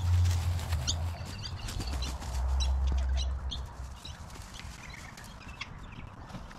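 Pruned branches rustling and crackling as they are carried over grass, with a low rumble for the first three seconds or so that then fades.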